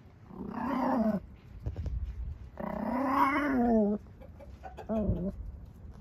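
Puppy whining in three drawn-out, wavering calls: a short one, a longer one that rises and falls in pitch, and a brief one near the end.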